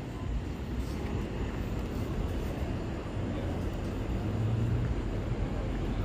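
Steady low rumble of outdoor background noise, with a faint low hum that swells about four seconds in and fades a second and a half later.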